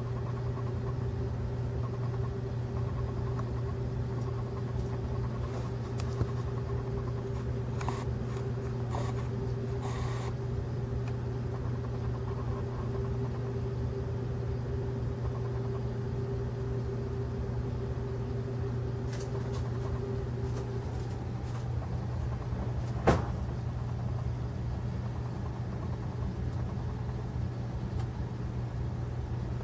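Steady low mechanical hum with a fainter steady tone over it that stops about twenty seconds in. A few faint ticks come through, and there is one sharp click a little later.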